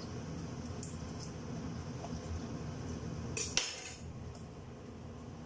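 Kitchen utensils clinking against cookware: a few faint ticks, then one brief metallic clatter about three and a half seconds in, over a steady low hum.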